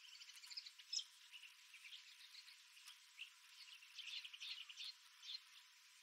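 Faint dawn chorus of desert birds: scattered short chirps and quick trills from several birds, with one sharper high note about a second in and a busier run of rapid notes around four to five seconds in.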